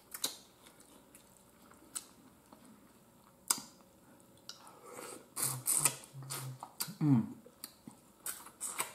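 Mouth sounds of someone eating shrimp boil with their fingers. A few separate wet clicks come first, then from about four and a half seconds in there is a busier run of lip smacks and chewing, with a couple of short closed-mouth hums.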